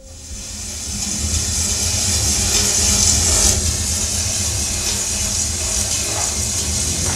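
Wind sound effect: a loud rushing hiss over a low rumble, starting suddenly and swelling over the first second, then blowing steadily.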